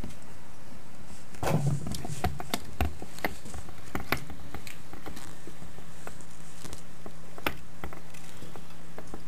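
Pond slider turtle walking in a dry plastic tank: a run of light clicks and taps of its claws and shell on the tank floor in the first few seconds, one more tap later on, over a steady low hum.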